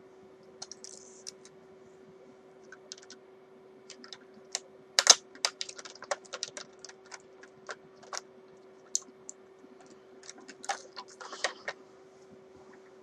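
Irregular light clicks, taps and short scrapes of small guitar parts and tools being handled, over a steady low background hum.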